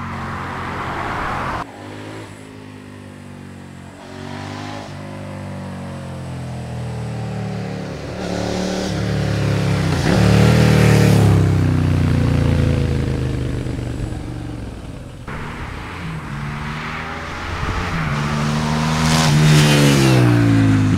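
Suzuki SV650 V-twin with a MIVV Oval aftermarket exhaust, accelerating hard through the gears and passing close by in separate drive-bys. The pitch climbs with each gear and drops as the bike goes past. The loudest passes come about ten seconds in and again near the end.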